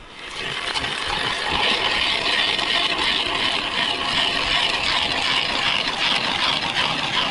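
Hand-cranked ice auger drilling a hole through ice: a steady grinding scrape of the cutting blades biting into the ice. It builds up over the first second and stops near the end as the hole is finished.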